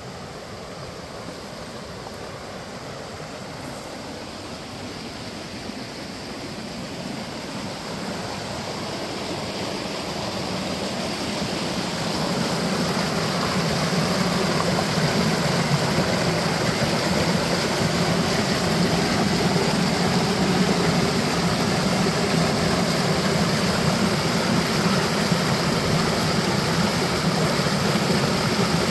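A small creek rushing and splashing over boulders in a short cascade. It grows louder over the first dozen seconds, then holds steady.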